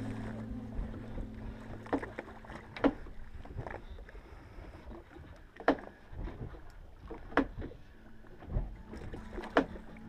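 Fishing boat on the open sea: a low wash of water and wind noise broken by about five sharp, irregular knocks and slaps against the boat.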